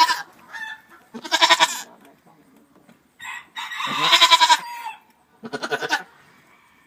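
Goats bleating: several separate quavering bleats with short gaps between them, the longest one in the middle, from a doe and her newborn kid.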